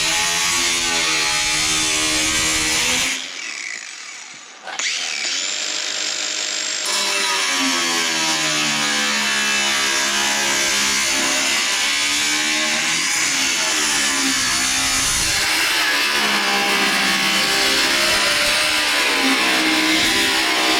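A power cutting tool cutting through old door sheet metal, its pitch rising and falling with the load. It stops briefly about three seconds in, then starts again and carries on.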